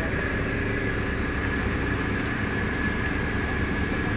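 A fishing boat's engine running steadily: a low, even drone with a thin, steady high whine above it.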